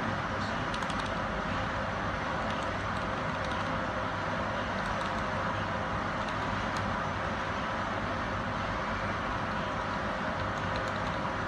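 Steady machine hum and hiss of equipment in the room, with a few faint scattered clicks.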